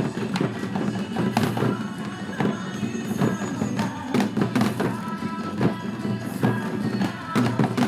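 A group of janggu (Korean hourglass drums) beaten together in time to recorded trot backing music, sharp drum strikes landing about twice a second over the song.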